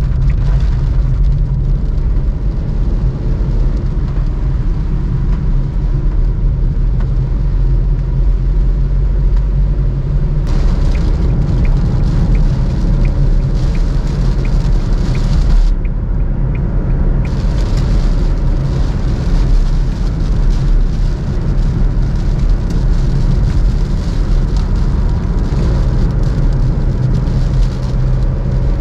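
Cabin noise of a Suzuki Alto VXR 2021 cruising on a wet highway: the 660 cc three-cylinder engine drones steadily under a hiss of tyres on the wet road. For a few seconds in the middle there is a run of light, regular ticks, about two a second.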